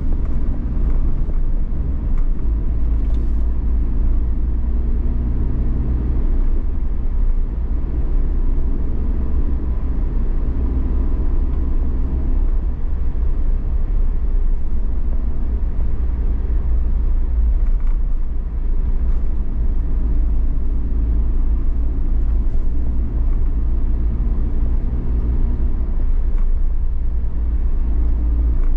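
Car driving through city streets: a steady low rumble of road and engine noise.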